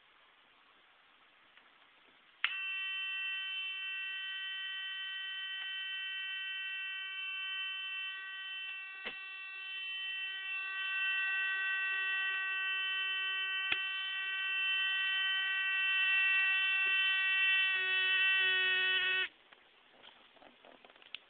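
Homemade burglar alarm's buzzer set off, giving a steady, even-pitched electric buzz that starts suddenly about two seconds in. It runs for about seventeen seconds with a couple of clicks, then sputters briefly and cuts off.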